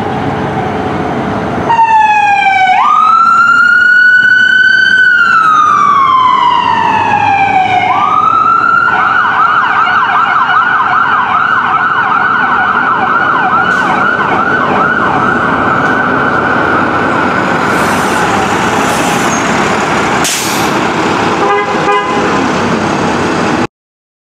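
Fire truck siren, close and loud: a slow wail that climbs and falls, then switches to a fast yelp. It cuts off suddenly near the end.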